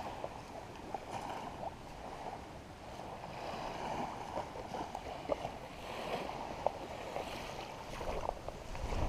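Small waves washing gently onto a sandy beach, swelling and easing, with a few faint clicks.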